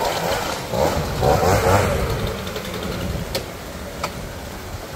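An engine running steadily at idle. Voices talk over it for the first two seconds, and there are a couple of sharp clicks near the end.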